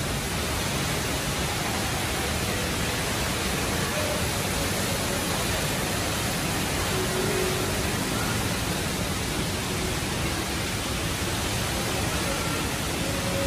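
Steady, even rushing of falling water from the Rain Vortex, Jewel's indoor waterfall.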